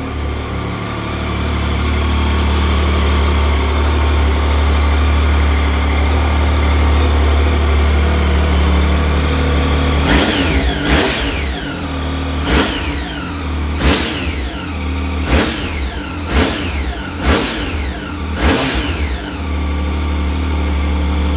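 2010 Triumph Street Triple 675's inline three-cylinder engine idling steadily, then blipped on the throttle about eight times in quick succession, each rev rising sharply and dropping back, before settling back to idle.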